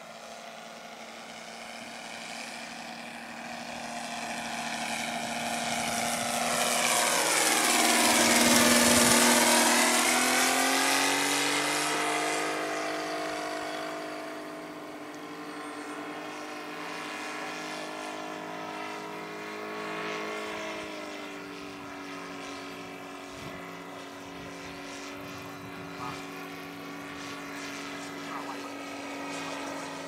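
Saito FG-60R3 three-cylinder four-stroke radial petrol engine of a large radio-controlled Pietenpol Air Camper, running in flight with its propeller. The engine note swells to its loudest about eight to ten seconds in, the pitch dipping and rising again there, then runs steadier and quieter, dropping a little in pitch about twenty-one seconds in.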